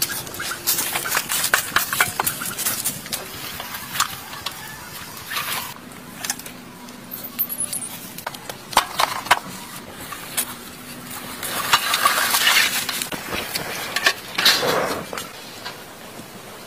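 Irregular metallic clanks, knocks and scrapes with rustling of dry brush as a rusted, wrecked motorcycle is dragged out of overgrown vegetation.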